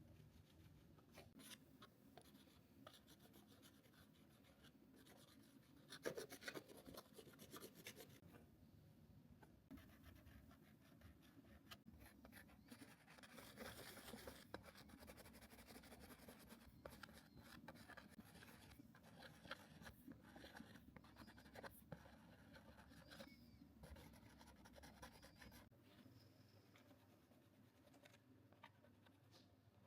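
Faint scratching and rubbing strokes of a drawing or painting tool moving across canvas, with small taps in between and a few louder strokes scattered through.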